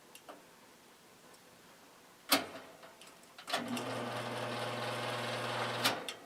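1950s General Electric box fan motor, blade removed, run on low: a sharp click, then about a second later the motor starts and hums steadily for about two and a half seconds before another click cuts it off. The owner judges that it sounds pretty good.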